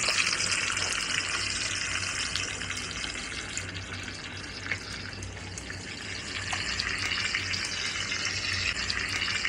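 Steady sizzling hiss with scattered small crackles, as from a fire-and-grill video played through phone speakers, over a low hum.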